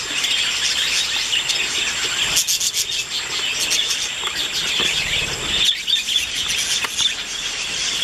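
A flock of budgerigars chattering: continuous, dense, rapid chirps and warbles.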